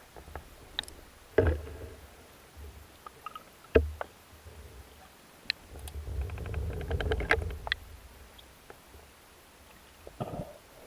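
Underwater sounds from a spearfishing dive: a few sharp, muffled knocks and a longer stretch of low rumbling with crackles in the middle.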